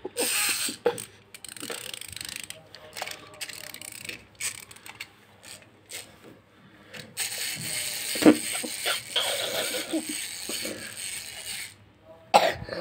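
Small plastic bee toy's clockwork gears clicking and ratcheting, then a steady whirring from about seven seconds in that stops shortly before the end.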